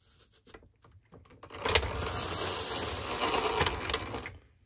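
Antique Rival No. 2 apple parer running an apple through its mechanism, paring and slicing it. A few faint clicks come first, then a loud, steady mechanical clatter of blades and gearing starts about a second and a half in and stops abruptly after about three seconds.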